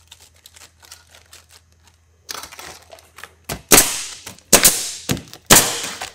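Nail gun firing nails through an asphalt shingle into the roof deck: several sharp shots about a second apart in the second half, after softer handling noise as the shingle is set.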